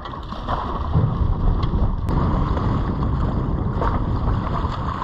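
Wind rumbling on the microphone over water splashing at the side of the boat.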